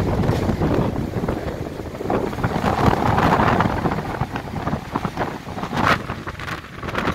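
Strong storm wind blowing in gusts that swell and ease, buffeting the microphone.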